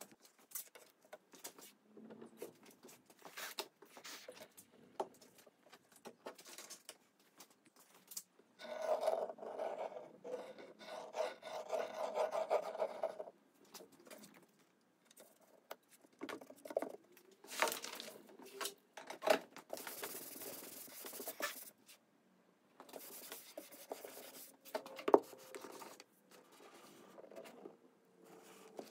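Hand work on veneer patches: stretches of rubbing and scraping, with small knocks and clicks as pieces and tools are handled and set down.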